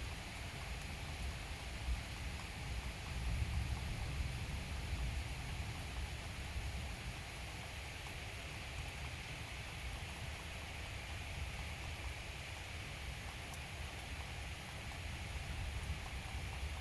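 Steady rain falling in a thunderstorm, an even hiss over a low rumble that swells for a couple of seconds a few seconds in.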